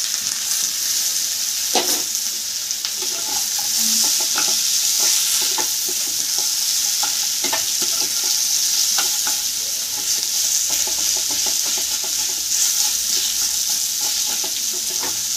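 Boiled potato cubes, onion and spices sizzling in hot oil in a kadai, with a steady hiss, while a wooden spatula stirs them, giving irregular scrapes and knocks against the pan.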